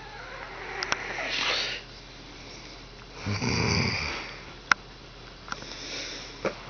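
A sleeping person snoring: a long hissing breath that grows louder, then a loud, low, rattling snore about three seconds in. A softer breath follows near the end, and a sharp click comes between them.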